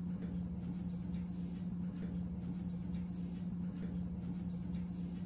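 Steady low hum of the room's background noise, with no other sound.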